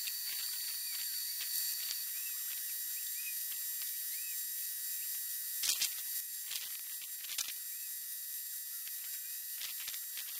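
Air-fed spray gun hissing steadily as it sprays contact adhesive onto a board, with a few light clicks and knocks around the middle and near the end.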